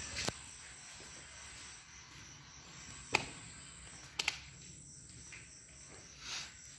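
Steady high chirring of crickets in the background, with a few sharp clicks, one about three seconds in and a close pair a second later.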